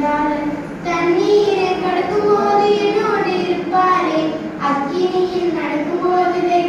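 Young girls singing a Tamil Christian song about Jesus into a handheld microphone, in long held notes that slide between pitches.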